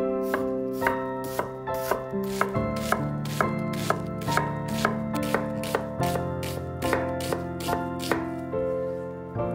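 Knife chopping on a cutting board in a steady rhythm of about two cuts a second, over soft background music.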